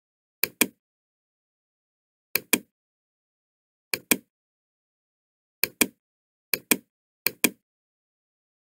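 Computer mouse button clicked six times in quick pairs, like double-clicks, spaced irregularly about one to two seconds apart.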